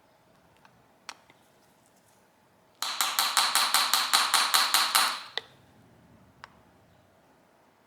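A quick run of light, ringing metal taps, about six a second for roughly two and a half seconds, starting near the middle, with a few single clicks of small metal parts before and after.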